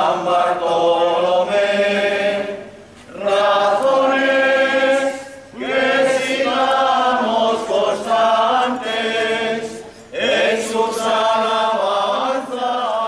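A group of people singing together unaccompanied, in four long sung phrases with short breaks between them.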